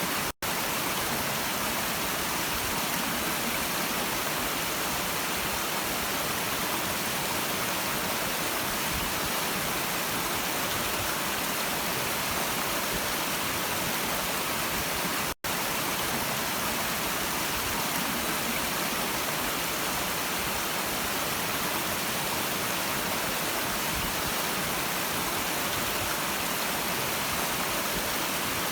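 Stream water rushing steadily, an even hiss with no distinct splashes. It drops out for an instant twice, once just under half a second in and once about halfway through.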